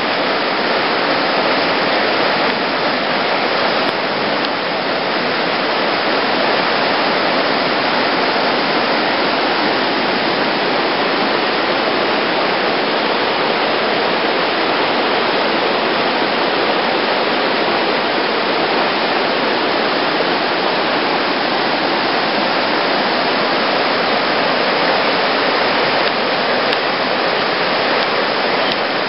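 River water rushing steadily, an even, unchanging noise.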